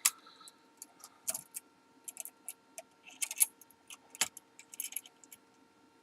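Scattered metallic clicks and short light jingles of a key being handled and set into the clamp of a Foley Belsaw key-cutting machine, over a faint steady hum.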